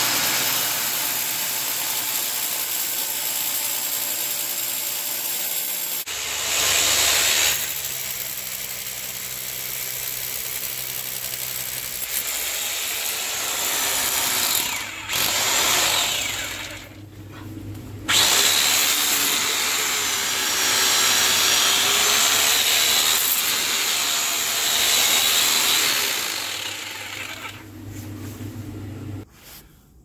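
Hammer drill boring through a stone wall. It runs in long stretches with brief stops about 15 and 17 seconds in, and goes quiet near the end as the bit breaks through the far side.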